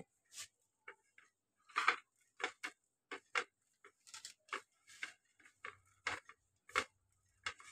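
A hand lightly tossing finely chopped spinach leaves on a plate: faint, irregular rustles and ticks, a few each second.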